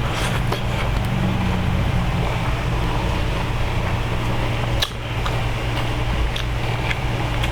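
Steady low hum of a room fan, with a few short sharp crunches of someone chewing raw vegetables; the sharpest comes about five seconds in.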